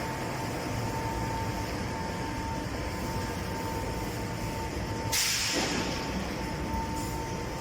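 Factory machinery running steadily with a constant whine, and a short burst of compressed-air hiss about five seconds in, like a pneumatic valve venting.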